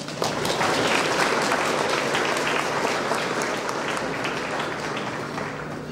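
Audience applauding: dense clapping that starts at once and slowly dies away.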